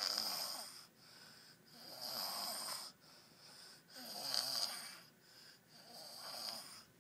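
Snoring in a steady breathing rhythm: four loud snores about two seconds apart, each followed by a softer breath.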